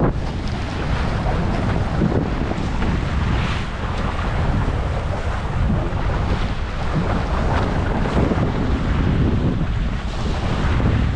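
Wind buffeting the microphone over the rushing and splashing of water along the hulls of a Hobie 16 catamaran sailing through swells. The noise is steady, with gusty rises and dips.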